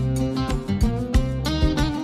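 Background music: a guitar-led track over a steady beat.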